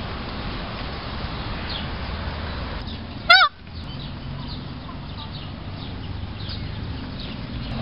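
An Indian peafowl (peacock) gives one short, loud call about three seconds in, rising and falling in pitch. Faint chirps of small birds run underneath.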